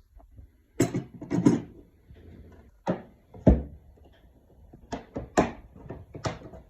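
Tool boxes and tools being handled: a series of separate knocks and clunks, about seven of them, the loudest about halfway through.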